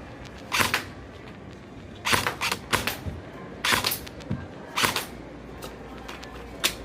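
Airsoft BB gun firing single shots, about six sharp cracks at irregular intervals a second or so apart.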